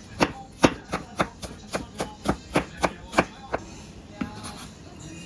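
Kitchen knife chopping on a cutting board, about four strokes a second, stopping a little over halfway through with one last stroke after a short pause.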